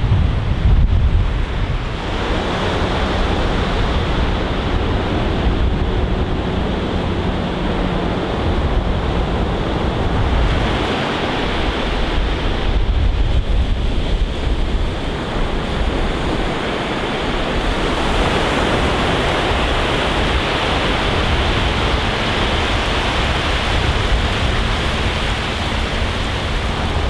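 Ocean surf breaking and washing up the beach in a steady, surging wash, with wind buffeting the microphone, heaviest near the start.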